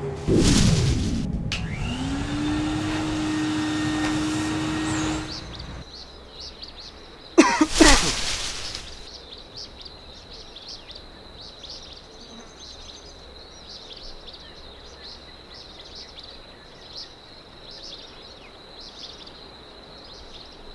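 A steady rushing noise with a low hum for about five seconds, then a short loud whoosh with sliding tones about eight seconds in. After that, a faint steady high tone with light chirps runs under the rest.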